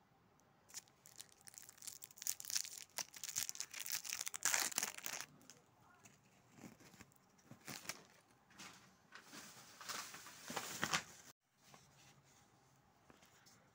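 Clear plastic wrapper being torn open and crinkled by hand around a small stamp, in two spells of rustling, the louder in the first few seconds and again near the end, stopping abruptly.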